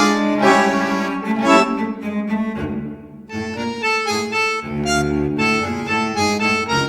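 Background instrumental music: sustained melodic notes over a steady low drone, with a brief drop in level about three seconds in.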